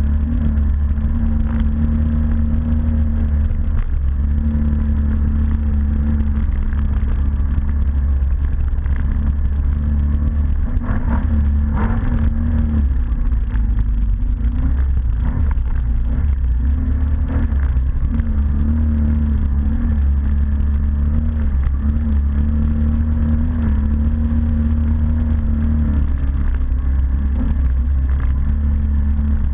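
ATV engine running under way, its pitch wavering up and down with the throttle, with a little clatter about a third of the way in.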